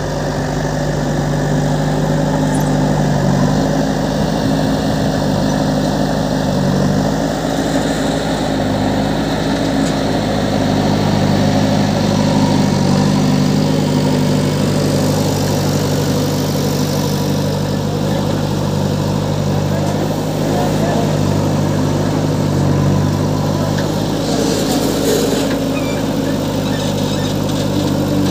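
JCB 3DX backhoe loader's diesel engine running steadily while the backhoe arm digs earth, its note shifting a little now and then as the hydraulics take load.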